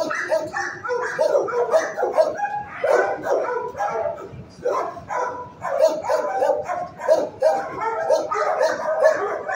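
Many dogs in a shelter kennel barking at once, short overlapping barks and yips running on without a break.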